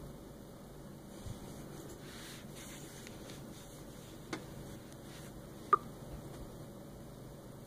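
Nexus 6 smartphone giving one short, sharp notification blip about six seconds in, a spurious notification sound with no apparent cause. A fainter click comes a second or so before it.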